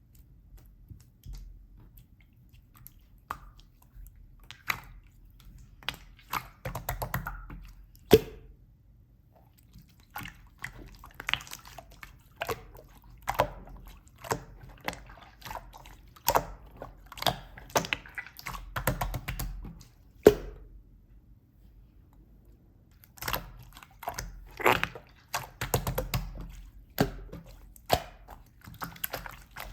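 Clear slime being squeezed and pressed by hand: wet squishing with many irregular sharp clicks and pops, the loudest about eight and twenty seconds in.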